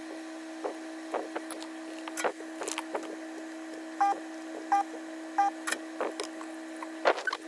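Hot air rework gun blowing with a steady hum while it heats a transistor off a motherboard to desolder it, with scattered clicks and taps of handling. Three short beeps come about four to five and a half seconds in.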